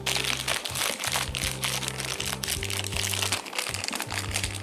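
Background music: held bass notes that change every half second or so, under a busy, crisp upper layer.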